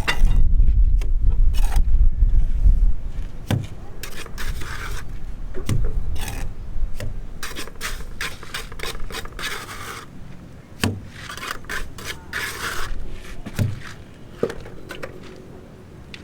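Repeated scraping and rubbing strokes with scattered sharp knocks, over a heavy low rumble in the first few seconds.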